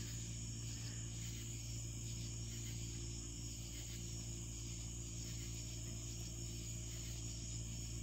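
Steady night chorus of crickets and other insects, a continuous high-pitched drone, over a constant low hum.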